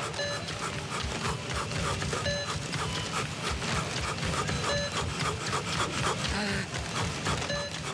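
Supermarket checkout barcode scanner beeping four times, one short high beep about every two and a half seconds, as items are scanned. Underneath runs the steady clatter and rustle of a busy checkout.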